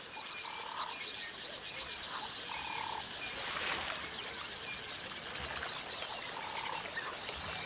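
A frog giving three short croaking calls, over faint high chirping, with a brief soft rush of noise about halfway through.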